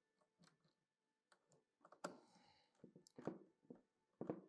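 A handful of faint, irregular clicks and small handling sounds from wires and a connector being fitted to the terminals of an alarm panel and communicator board.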